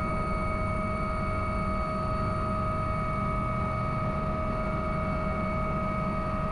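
AW139 twin-turbine helicopter heard from inside the cockpit at takeoff power, climbing away after the takeoff decision point. A steady, even din of rotors and engines carries a constant high whine.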